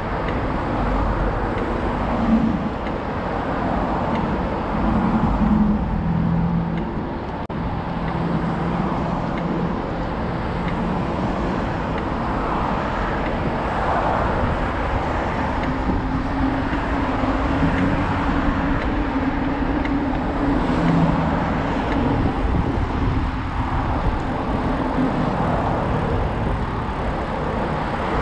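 Steady roadway traffic from the multi-lane road alongside: a constant rush of tyres and engines, with several cars passing close by and swelling briefly louder.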